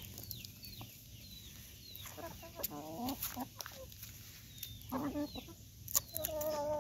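Hens clucking as they peck at broken cookie pieces: a few short calls, then a longer drawn-out call near the end, with some sharp clicks in between.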